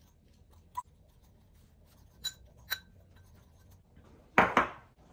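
Metal spoon clinking against a ceramic bowl while stirring a dry spice rub: a light tap, then two ringing clinks about half a second apart. About four seconds in comes a louder, short clatter, the loudest sound here, as the bowl is handled.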